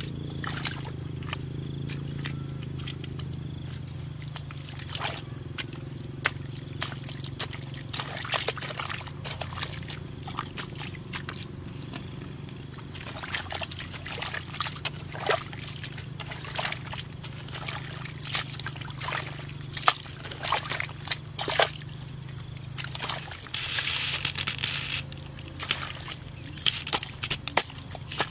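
Hoe chopping and scooping into wet mud, with irregular knocks and squelching, sloshing splashes. A steady low hum runs underneath.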